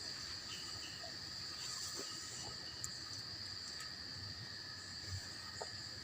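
Steady high-pitched chirring of insects in the background, with a few faint ticks.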